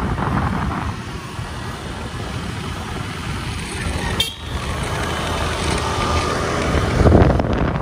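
Motorcycle engine running under way, with road and wind noise; a brief break about four seconds in and a louder surge near the end.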